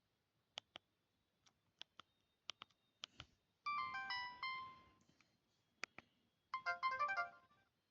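A Samsung B130 mobile phone's speaker playing two short snatches of its built-in ringtone melodies, a second or so each, with sharp clicks before and between them.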